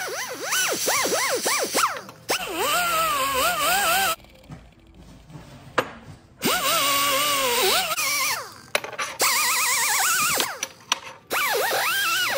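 A small power tool spins a stainless steel crimped end brush against aluminum, wire-brushing the oxide off before welding. It runs in several stretches with short pauses, and its whine rises and falls in pitch as the brush is pressed on.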